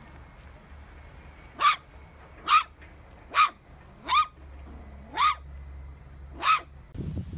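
A small fluffy puppy yipping six times, about a second apart; each yip is short and high-pitched with a quick upward bend.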